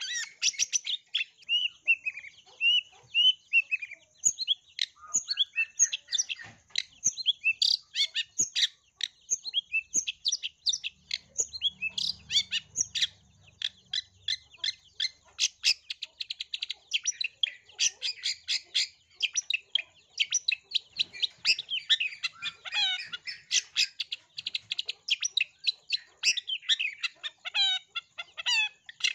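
Long-tailed shrike singing a fast, varied song of short chirps and slurred notes, laced with mimicked house sparrow chirps.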